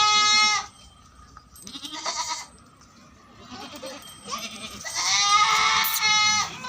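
Barbari goats bleating: a loud call at the start, a shorter, fainter one about two seconds in, and a long, loud bleat from about four seconds in until near the end.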